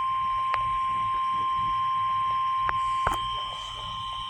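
NOAA Weather Radio 1050 Hz warning alarm tone: one steady high beep held without a break, the alert signal that comes before an urgent warning message. A few faint clicks sound over it, about half a second in and again near three seconds.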